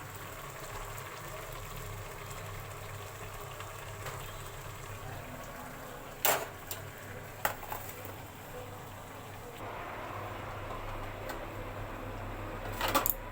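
Pot of grated carrots cooking in milk and cream for gajar ka halwa, a steady simmering bubble and hiss. A few sharp knocks cut in, about six seconds in, again a second later, and near the end.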